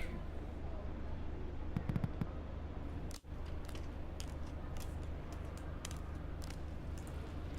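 Scattered sharp clicks and taps over a steady low hum, with a few louder low thumps about two seconds in and a brief dropout a little past three seconds.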